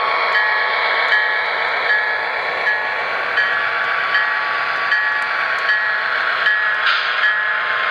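HO scale model diesel locomotive and double-deck commuter cars running along the track: a steady running noise with a short ding repeating about every three-quarters of a second, like a locomotive bell, and a brighter burst about seven seconds in.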